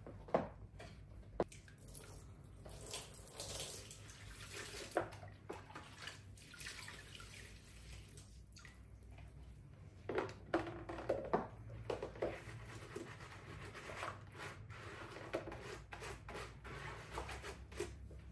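Water sloshing and dripping in a plastic washbasin as rubber-gloved hands scrub a laptop, with scattered light knocks and clicks, a cluster of them about ten seconds in.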